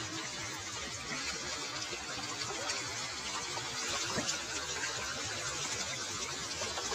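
Shallow river water spilling steadily over the edge of a concrete causeway, a constant rushing.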